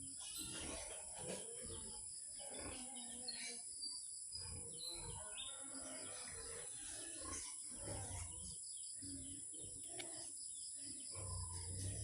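Faint outdoor ambience: birds chirping here and there over a steady high hiss.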